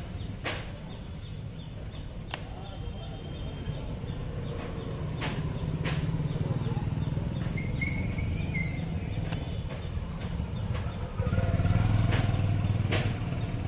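Motor vehicles running past in the street, a steady low rumble that grows louder about eleven seconds in as one comes closer, with a few sharp clicks and a couple of brief high chirps.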